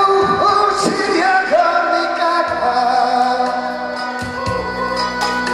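A man singing a pop song through a handheld microphone over a backing track, holding a long note near the middle; the backing music carries on alone near the end.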